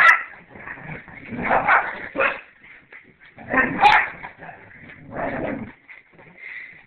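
Dogs barking and yipping during rough play, in four short bursts spread across a few seconds.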